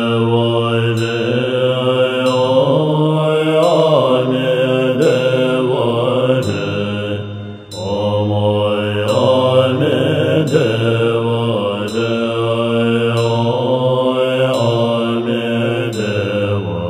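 Tibetan Buddhist mantra chanting: one melodic voice repeating the mantra in smooth rising and falling phrases over a steady low hum, with a short break about seven and a half seconds in.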